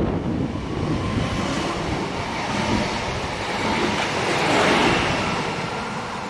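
Electric multiple unit passing close by at speed: a broad rush of wheels on rail and air that swells to its loudest about four to five seconds in, then starts to fade as the train moves away.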